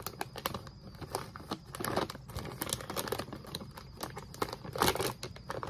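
Shiny foil-lined potato chip bag crinkling and crackling as it is handled and turned over in the hands, with louder crackles about two seconds in and again near the end.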